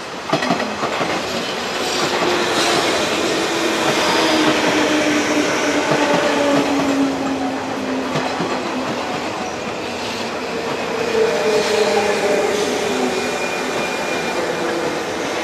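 JR West 201 series electric train running past: wheels clacking over rail joints near the start, under a steady rumble. A whine from the chopper-controlled traction motors glides down in pitch, with a second whining tone about two-thirds of the way through.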